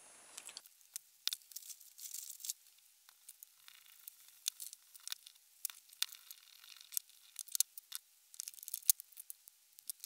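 Small screws being undone with a screwdriver and metal parts pulled off a microwave oven's AC fan motor: a quiet, irregular run of light metallic clicks and scrapes, with a short scratchy rasp about two seconds in.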